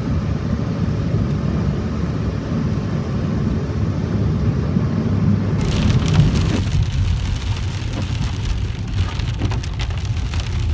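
Steady road and engine rumble heard inside a moving car's cabin on a wet road. A little past halfway, heavy rain suddenly starts pattering hard on the windshield and roof and keeps on.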